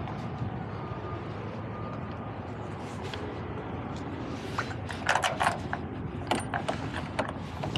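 Steady low rumble of a semi-truck's engine and road noise. From about four and a half seconds in come several sharp clinks and rattles, like keys or loose metal jangling.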